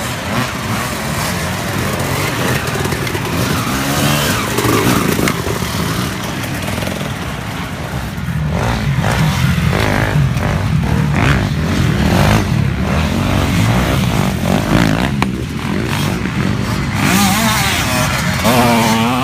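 Several dirt bike engines revving up and down, pitch rising and falling quickly as riders race past through ruts and over jumps.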